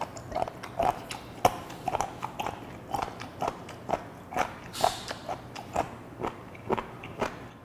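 A man chewing a mouthful of horned turban sea snail meat: crunchy bites in an uneven run of about three a second, picked up close by a clip-on microphone.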